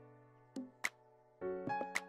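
Instrumental background music: held chords, with a new chord coming in about one and a half seconds in, and a sharp percussive click about once a second.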